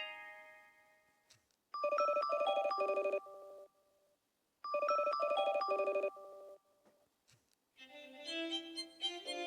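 LG phone ringtone: a short electronic melody of rapidly warbling notes, played twice with about a second's pause between. A plucked melody fades out at the start, and near the end another tone, a string-like melody, begins.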